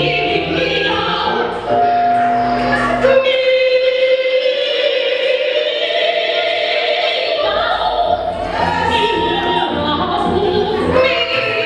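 Music with singing: long held, wavering sung notes over a full backing, with the low end dropping away for a few seconds in the middle before the full band comes back.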